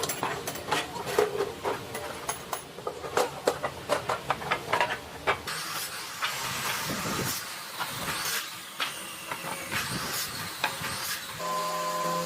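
Workshop noise: a run of sharp knocks and clatter for about five seconds, then a steady hiss with occasional clicks, and near the end a power tool's motor starts up with a steady hum.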